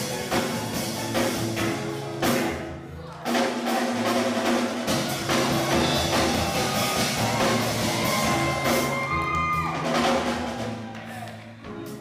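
Steel pan band playing live with a drum kit: ringing pan notes over a steady drum beat, the music growing quieter over the last couple of seconds.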